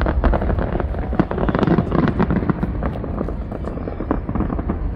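Aerial firework shells bursting into many rapid crackling pops, thickest about two seconds in.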